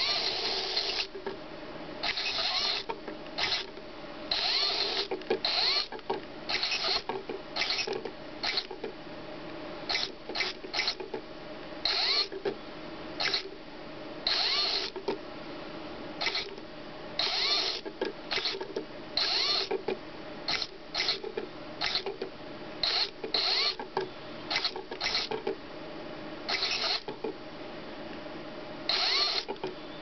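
Zibits miniature remote-control robot's tiny geared motor whirring in short, irregular bursts as it is driven forward, back and turning.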